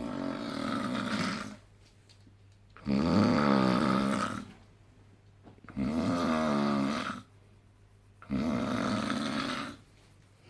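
A man snoring: four long snores about three seconds apart, each lasting about a second and a half, the middle two with a fluttering buzz.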